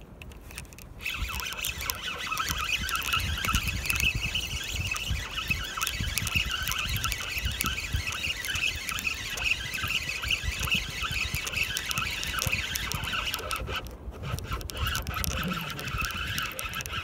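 Fishing reel being cranked steadily to retrieve line, a rapid gear whir that starts about a second in, stops briefly near the end, then starts again.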